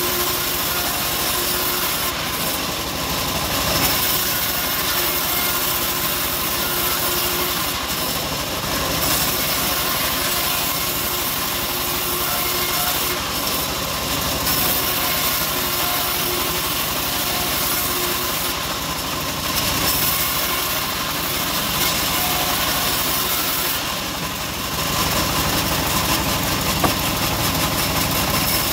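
Homemade bandsaw mill running steadily while its blade rips old teak into boards, with the drive's steady machine drone throughout. The hiss of the cut eases briefly about every five or six seconds.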